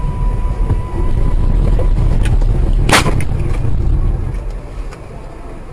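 Low rumble of a vehicle on the road with a single sharp bang about three seconds in; the rumble fades away over the last second or so.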